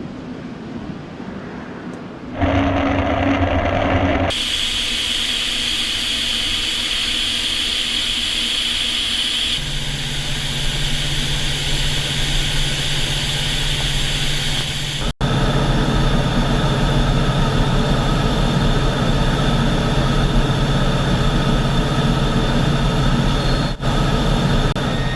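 U-2 spy plane's jet engine running, a steady high whine over a low hum. The sound changes abruptly several times, as at cuts between separate recordings.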